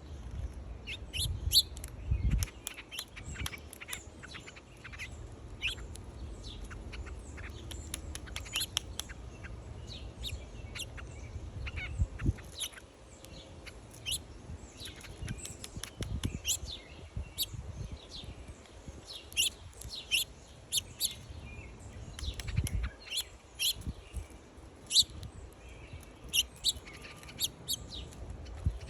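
Small songbirds at a feeder chirping, with many short, high chirps coming rapidly and overlapping. A few low bumps sound now and then, about two seconds in, around twelve seconds in, and near twenty-three seconds.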